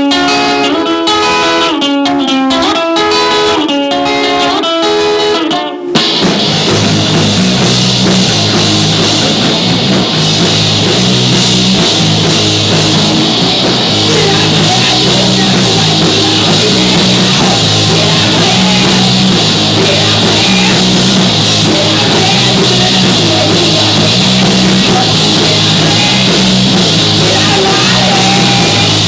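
Live rock band playing a hard song: a lone guitar picks a note-by-note intro figure, then about six seconds in the full band comes in loud with drums, bass and guitars and keeps going in a dense, driving groove.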